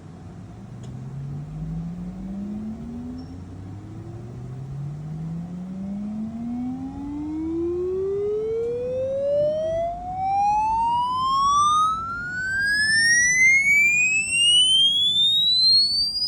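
Electronic sine-tone frequency sweep: a single pure tone gliding steadily upward in pitch from a low hum to a high whistle, growing louder as it rises, with fainter higher tones above it.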